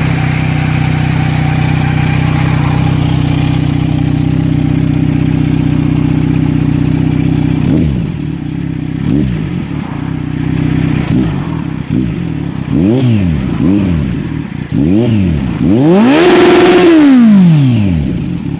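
Kawasaki Z900 inline-four idling steadily through an aftermarket shorty slip-on exhaust, a replica Akrapovic. About eight seconds in, a string of quick throttle blips starts, each rising and falling and climbing higher. Near the end a longer rev is held briefly before it drops back to idle.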